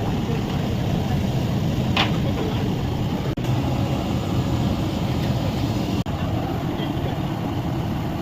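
A steady low rumbling roar, cut off for an instant twice.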